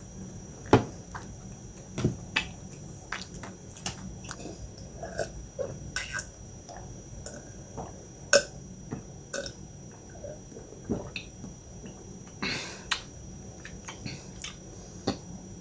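Close-up mouth sounds of drinking juice from a cup: sips and swallows with lip smacks and small wet clicks scattered through, and a longer breathy sound about twelve seconds in.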